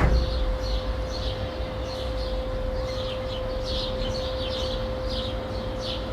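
Residential street ambience: small birds chirping over and over, a low rumble of distant traffic, and the steady hum of a neighbour's vacuum cleaner. A short knock is heard right at the start.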